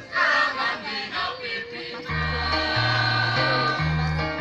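Mixed choir singing, with an instrumental accompaniment of steady held bass notes and chords joining about two seconds in.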